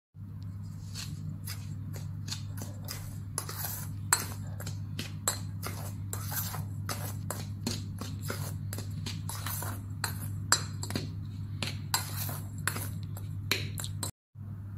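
A metal spoon stirring dry flour in a stainless steel bowl, clinking and scraping against the sides many times in an uneven run, over a steady low hum.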